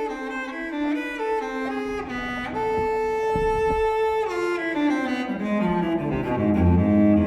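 Background music: a solo cello playing a slow melody, holding one long note in the middle, then stepping down to low notes near the end.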